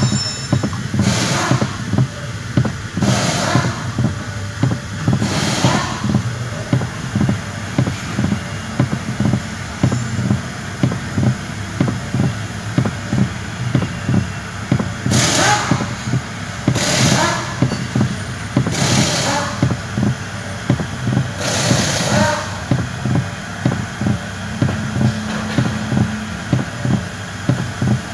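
Short scraping, creaking bursts from the steering column's mounting bolts and bushings in a 2019 Toyota Rush as the steering wheel is turned back and forth, several near the start and several more in the middle, over a steady low hum. The noise comes from loose, dry mounting bolts and bushings at the column mount, not from the suspension or steering rack.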